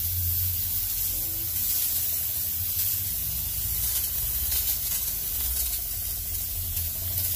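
Steady hiss with a low hum underneath: constant room background noise, with no distinct event.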